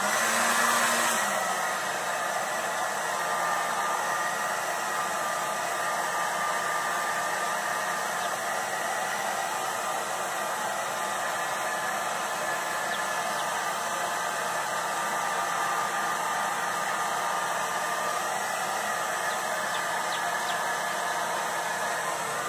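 Handheld hair dryer running steadily, blowing air; it is a little louder with a low hum for about the first second, then settles to an even rushing noise.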